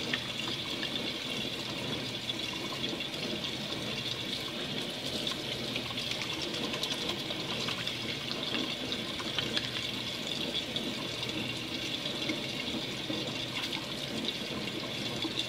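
Kitchen faucet running a thin, steady stream into a stainless-steel sink while hands are lathered with liquid soap under it.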